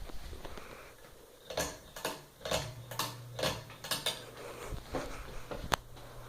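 Light metallic clinks about twice a second, then one sharp click near the end. A low steady hum comes in partway through and keeps going.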